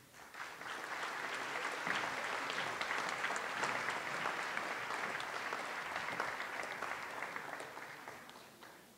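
Audience and officials applauding, a steady patter of many hands clapping that swells up just after the start and dies away near the end.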